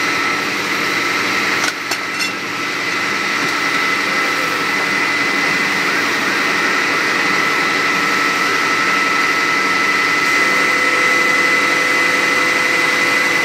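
Fire engine's pump engine running steadily, driving water to the hoses, a continuous drone with several held tones.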